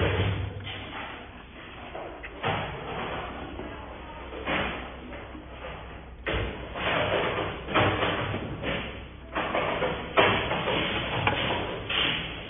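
Handling noise: a series of irregular knocks, clicks and scrapes as a metal snap toggle anchor is worked into a drilled hole in a board.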